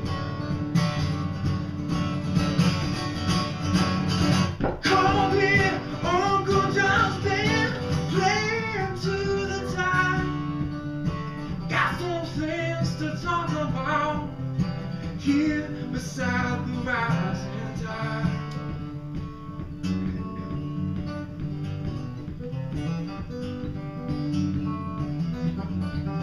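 Solo acoustic guitar strummed through a song, with a voice singing a melody over it from about five seconds in until about eighteen seconds.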